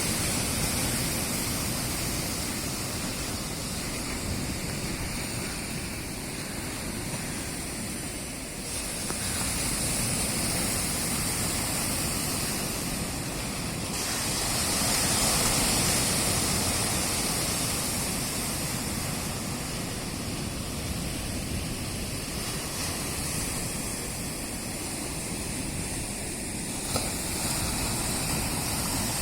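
Sea surf breaking and washing on a rocky shore: a continuous rushing that swells louder about halfway through, then eases again.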